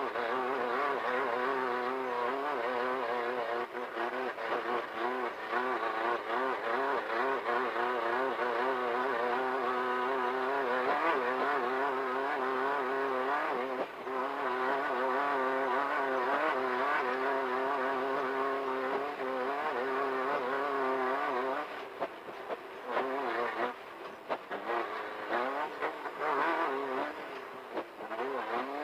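Off-road race car's engine running at high revs, its pitch wavering up and down with the throttle. About three quarters of the way through it eases off briefly, then picks up again.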